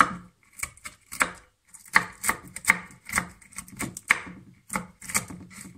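Kitchen knife chopping walnuts on a wooden cutting board: irregular sharp knocks of the blade on the board, about two to three a second, with a brief pause between one and two seconds in.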